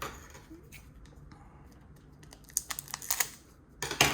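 Trading card pack wrapper crinkling and cards being handled: a quiet stretch, then a quick run of small clicks and crinkles, and a louder rustle near the end.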